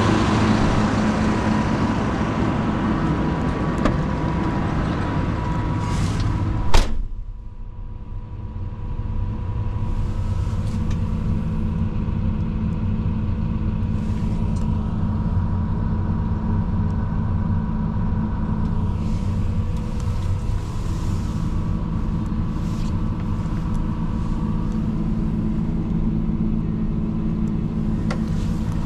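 John Deere 180G excavator's diesel engine idling steadily. About seven seconds in, a single sharp knock, the cab door shutting, after which the engine sounds duller, as heard from inside the closed cab.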